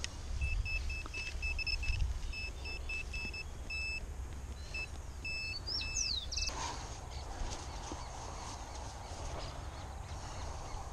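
Handheld metal-detecting pinpointer beeping in short, quick high pulses, a few a second, as it is probed into the dug hole: the sign that it is picking up a metal target in the soil. The beeping stops about two thirds of the way through, leaving a rustle of handling.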